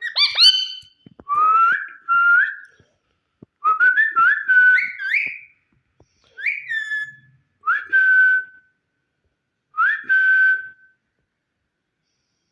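Indian ringneck parakeet whistling in six short phrases, each a quick upward swoop that settles on a held note.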